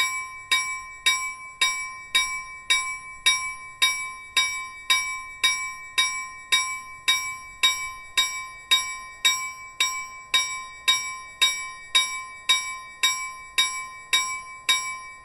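A train's bell ringing steadily, just under two even strokes a second, each stroke a clear metallic ring.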